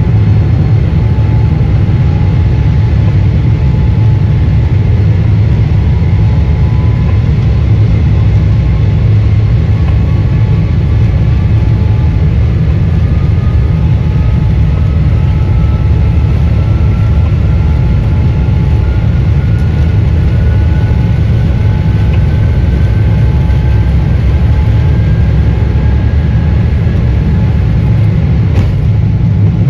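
Jet airliner accelerating down the runway on its takeoff roll, heard from inside the cabin: a loud, steady low rumble of engines and wheels, with a whine that climbs slowly in pitch from about six seconds in as the aircraft gathers speed.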